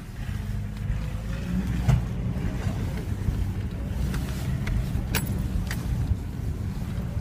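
Steady low rumble of a car driving slowly over bumpy grassland, heard from inside the cabin, with a few sharp knocks from the body as it jolts.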